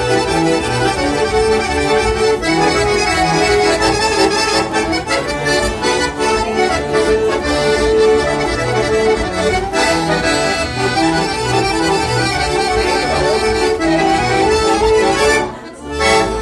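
Two piano accordions playing a duet, a steady pulsing bass line under sustained chords and melody. The music dips briefly about a second before the end.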